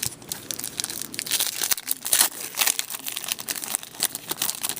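Crinkling and crackling of a card pack's wrapper and packaging being handled, in many quick irregular crackles, as trading cards are pulled and sorted.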